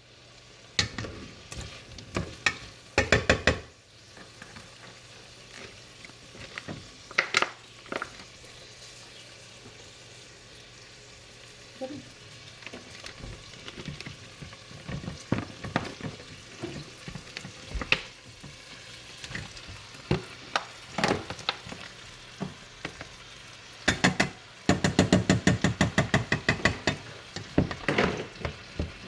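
Food sizzling in hot oil in a frying pan, with a utensil knocking and scraping against the pan as it is stirred. Near the end comes a quick run of rapid knocks, several a second.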